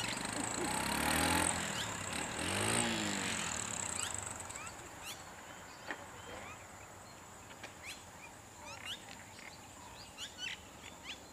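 A small vehicle's engine passes in the first few seconds, its pitch dropping as it goes by. After that come many short chirping bird calls over a steady high-pitched whine.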